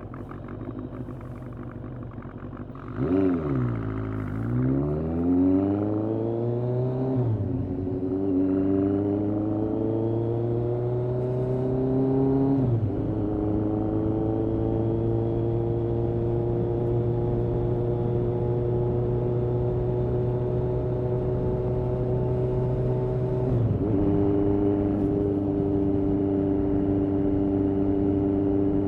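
Kawasaki ZRX1200R inline-four on Yoshimura TMR-MJN carburettors, pulling away and accelerating. The engine note climbs and drops sharply with upshifts about 7, 13 and 24 seconds in, then holds a steady pitch while cruising.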